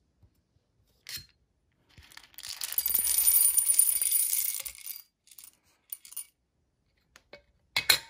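Whole roasted coffee beans poured from a metal cup into a glass bowl, a dense rattle of beans hitting glass for about three seconds. Scattered clicks follow, and there is a sharp clink near the end.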